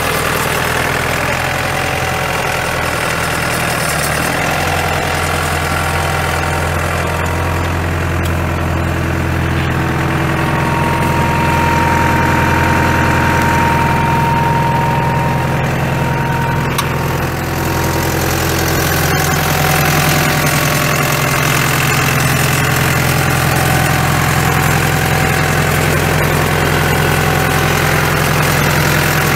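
1991 AGCO Allis 6670 tractor's SLH four-cylinder diesel engine running steadily at idle. A thin whine joins for a few seconds in the middle.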